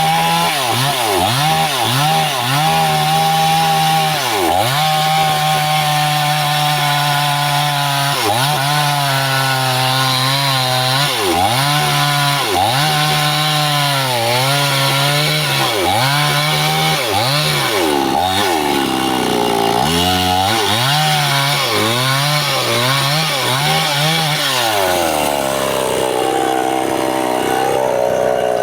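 Stihl two-stroke chainsaw running at high revs while cutting bendo wood, its engine pitch dipping and climbing back again and again. Near the end it drops to a lower, steadier running speed.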